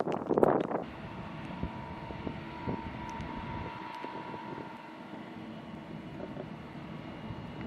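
Distant jet airliner engines, a steady whine with a faint high tone, under the hiss of the storm. Wind buffets the microphone hard for about the first second.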